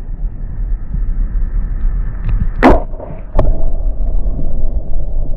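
A camera being dipped into shallow, muddy floodwater: a low rumble of water against the microphone, one sharp splash about halfway through, a knock just after, then a louder muffled underwater wash.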